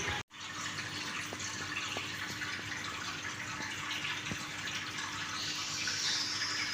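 Aquarium water running: a steady trickle over a faint steady hum, with a few light clicks.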